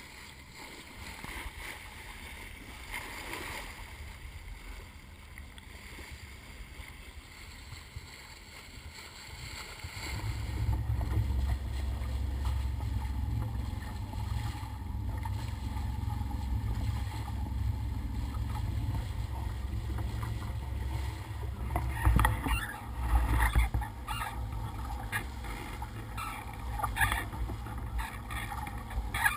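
Bow wave of a sailboat under motor rushing and splashing along the hull. A low rumble sets in about ten seconds in, and sharper irregular splashes come in the last few seconds.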